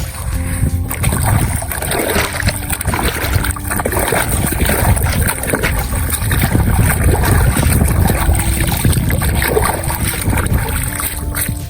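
Water sloshing and splashing as toy trucks are washed, a dense irregular noise throughout, with faint background music under it.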